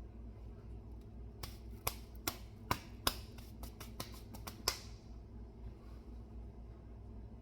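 A seasoning shaker being shaken and tapped over chicken: a quick, irregular run of sharp clicks and taps lasting about three seconds, over a low steady hum.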